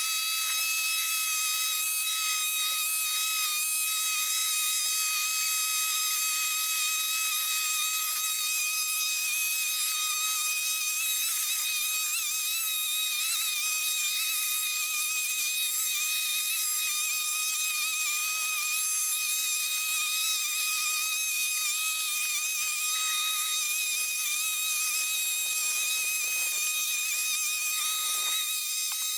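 Gas-engine leaf blower running steadily: a high, constant whine over a rush of air, with a brief dip near the end.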